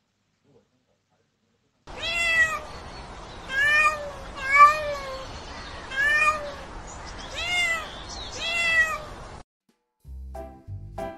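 A kitten meowing over and over: about six drawn-out meows, each rising and falling in pitch, a second or so apart. Music with a plucked beat starts near the end.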